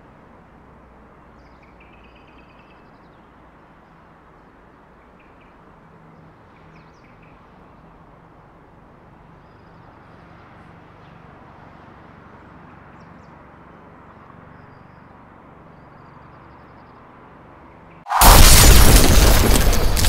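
Faint steady outdoor ambience with a few faint high chirps, then, near the end, a sudden very loud explosion-like burst with a deep rumble cuts in and slowly fades: an outro sound effect.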